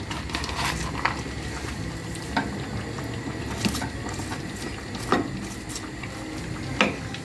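Pot of potato and vegetable stew bubbling on the stove, with about five light knocks spread through it.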